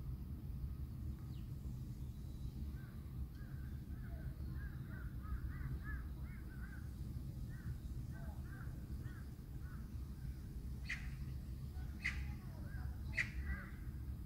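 Birds calling: a run of quick chirping calls, then three short, sharp calls about a second apart near the end, over a steady low rumble.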